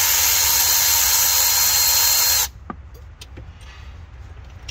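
Milwaukee cordless electric ratchet running steadily as it spins out a throttle-body bolt. It stops about halfway through, leaving a few faint clicks.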